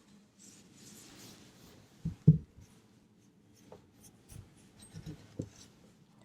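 Faint rustling with a few short low thumps, the loudest pair about two seconds in and softer ones later: someone or something shifting about close to the microphone.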